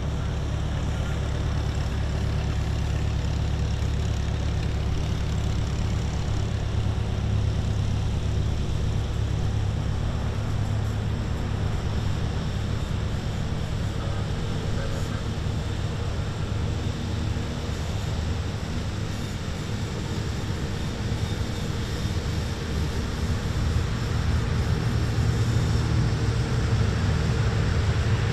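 C-130J Super Hercules turboprop engines droning steadily at a distance, the low drone growing louder over the last few seconds.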